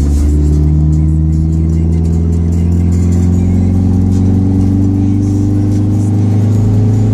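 Dodge SRT-4's big-turbo four-cylinder engine heard from inside the cabin, pulling steadily in gear with its pitch rising slowly as the car gathers speed.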